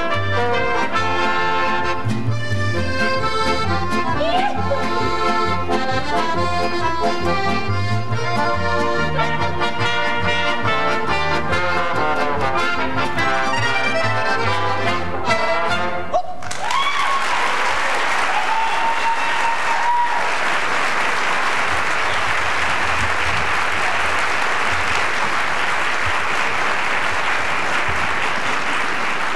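Folk band of clarinet, accordion, trumpets, trombone and double bass playing a lively tune over a steady bass beat, ending abruptly about sixteen seconds in. Audience applause follows, with a whistle rising out of it.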